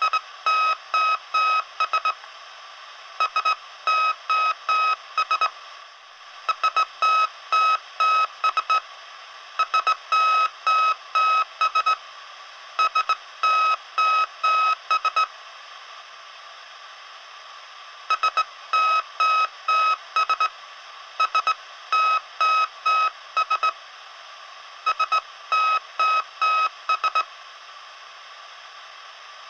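Electronic beep tone sounding an SOS distress signal: clusters of short and longer beeps on one high pitch, repeated with brief pauses between them, over a steady background hiss.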